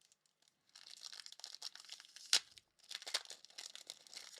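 Foil trading card pack wrapper crinkling and tearing as it is opened, starting under a second in as a dense run of small crackles, with one sharper snap partway through.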